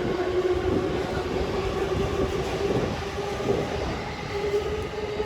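Chuo-Sobu Line local electric commuter train running, a steady rumble with a sustained tone that rises slightly near the end.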